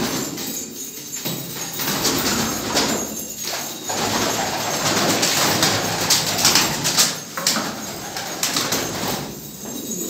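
Domestic pigeons cooing in a loft, with a flurry of sharp rustling and clicks around the middle, likely from wings and feet.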